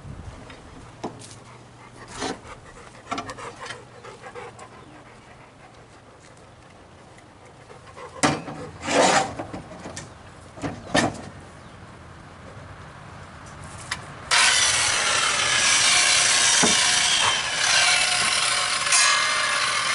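Scattered knocks and clicks from handling the tools, then about fourteen seconds in a handheld circular saw starts suddenly and runs steadily through a 4x6 pressure-treated yellow pine beam, making an angled decorative end cut. The saw is much the loudest sound.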